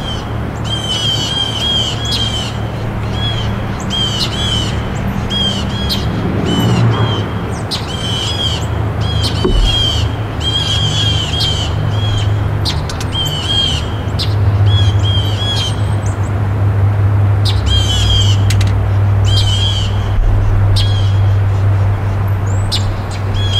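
A songbird singing short, quickly repeated phrases about once a second, over a steady low hum that grows louder about halfway through.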